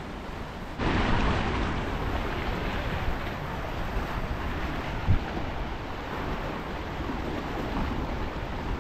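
Wind buffeting the microphone over small waves washing against rocks, coming in abruptly about a second in after a quieter, muffled stretch. A brief low thump about five seconds in.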